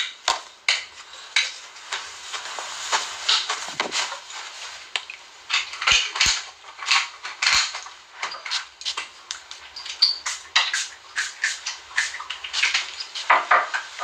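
Close-up handling noise: a quick, irregular run of clicks, knocks and light metallic clinks as small hard objects are picked up and moved next to the phone's microphone.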